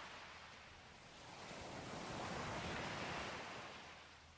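Faint sea surf washing on a shore: a wave swells in about two seconds in and then fades away near the end.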